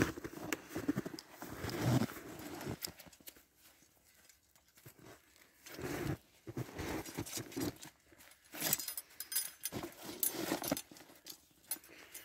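Steel snare support cable and its metal fittings being handled against a tree, rattling and clinking in irregular bursts, with dull crunches of snow underfoot. The sharpest clinks come in a cluster about two-thirds of the way in.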